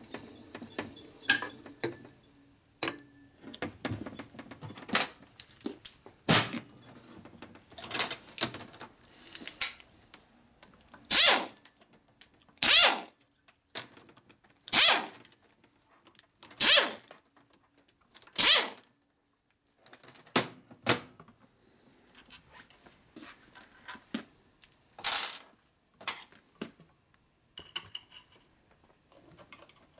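Compressed-air blow gun fired in a series of short hissing blasts at a motorcycle engine case, about every one and a half to two seconds, with another blast a few seconds later. Before the blasts come light metallic clinks and clicks of parts and tools being handled.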